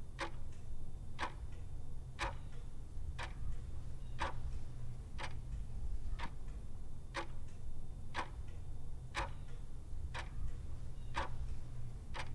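A clock ticking about once a second, over a steady low hum.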